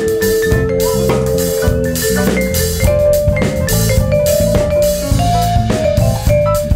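Live jazz band playing: drum kit and electric bass under grand piano and vibraphone, with long held melodic notes on top.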